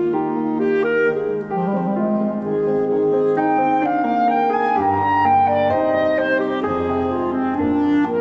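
Clarinet and grand piano playing a classical duo: the clarinet carries a melody of held notes over piano accompaniment, with deeper piano bass notes coming in about five and seven seconds in.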